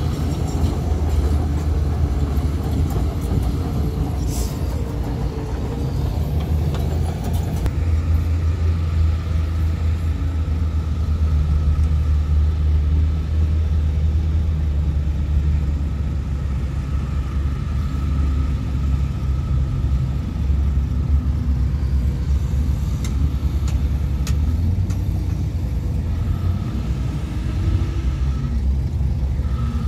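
Heavy diesel engine of earthmoving machinery running steadily with a deep rumble. A thin high whine comes and goes through the middle and later part.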